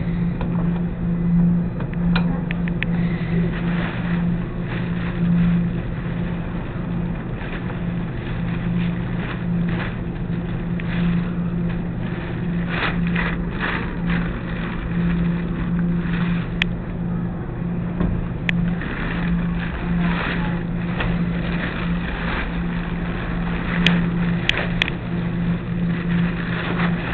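Commercial laundromat machines running: a steady low mechanical hum over a background rumble, with a few sharp clicks and knocks in the second half.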